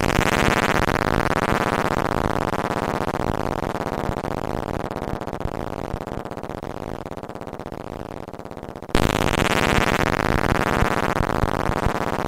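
Harsh noise music: a dense wall of distorted electronic noise whose brightness slides steadily downward. About nine seconds in it cuts and starts again with the same downward sweep.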